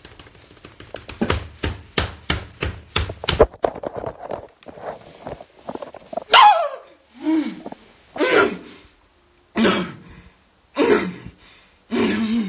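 A rapid run of sharp knocks or taps, then a string of short, separate voice sounds: a falling cry about six seconds in, followed by several grunts or groans.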